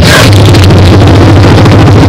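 Dinosaur roar sound effect: a loud, low, steady rumbling growl, with a short hiss at the very start.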